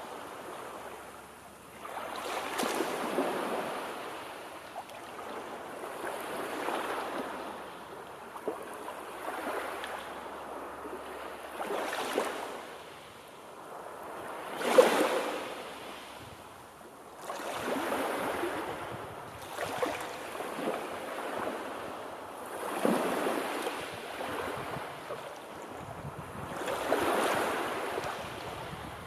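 Sea surf: waves breaking and washing up on the shore one after another, a swell of rushing water about every three seconds. The loudest wave crashes about halfway through.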